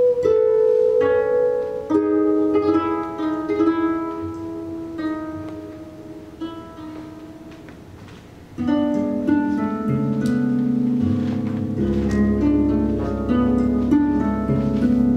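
Two concert harps played as a duet, plucked notes ringing on over one another. The playing thins and quietens mid-way, then comes back fuller and louder, with low notes added, about two-thirds of the way through.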